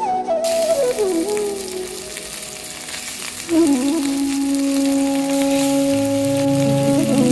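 Turmeric-coated rohu fish pieces frying in hot oil in a stainless steel pan, a steady sizzle that starts about half a second in, with a flute melody playing over it.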